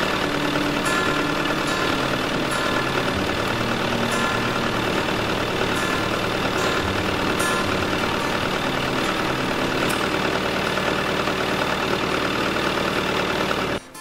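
Backhoe loader engine running steadily, then cutting off abruptly near the end.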